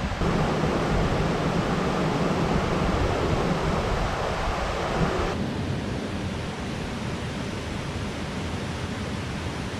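Steady rushing of river water, an even noise with no distinct events; about five seconds in it suddenly drops to a softer, steady rush.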